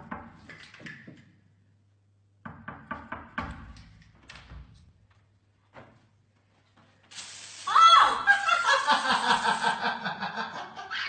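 Knocking on a wooden door, a few raps at a time, then a few seconds of quiet. A sudden loud shriek follows and breaks into rapid bursts of laughter.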